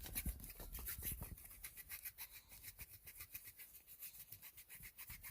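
Wood rubbed quickly back and forth against wood to make fire by friction: an even rasping of short strokes, several a second.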